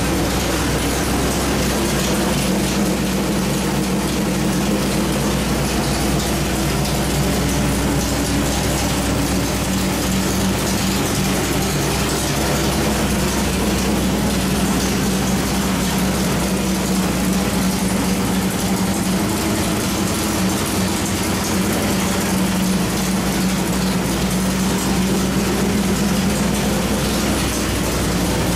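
Small-block Chevy 434 V8 with a hydraulic roller cam and Holley 850 carburettor, running on an engine dyno at a steady idle with no revving.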